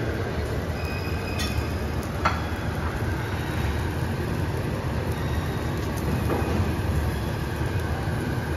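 Steady low rumble of a busy commercial kitchen, with a few light metal clinks, the sharpest about two seconds in.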